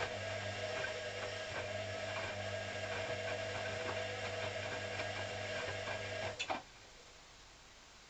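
Hoover CA232 washing machine turning its drum during the wash: a steady motor hum and tone with light ticks about twice a second. About six and a half seconds in there is a click, and the motor stops, leaving only a faint background.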